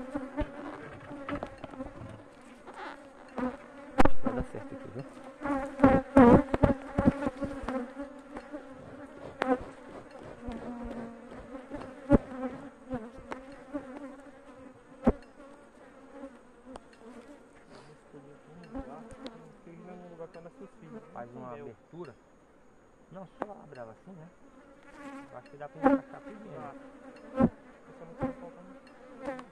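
Honeybees buzzing in a steady hum around an opened hive, with scattered knocks, taps and scrapes of a metal hive tool and wooden hive parts as the lid comes off and the frames are worked. The knocks are loudest and thickest about four to seven seconds in.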